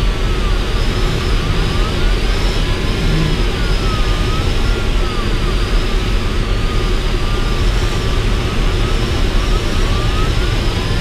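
Steady rush of airflow around an ASK 13 glider's cockpit in flight, with an audio variometer's electronic tone sweeping up and down in pitch. The tone is signalling only weak, patchy lift.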